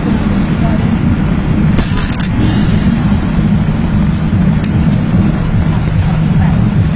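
Loud, steady rumble of riding a bicycle along a busy city street with car traffic, picked up by the small built-in microphone of a 2002 Sony Clie handheld, with a short high rattle about two seconds in.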